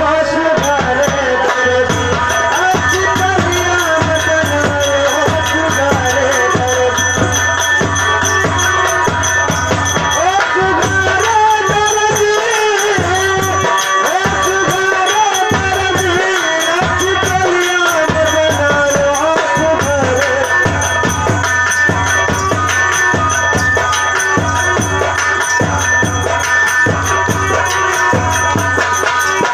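Folk music for a stage dance: a steady drum beat with a rattling percussion instrument under a melody line that bends in pitch.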